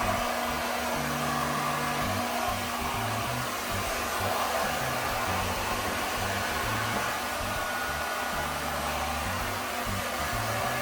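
Xiaomi Mi Ionic hair dryer running, a steady even rush of blown air that starts abruptly and holds level, with background music underneath.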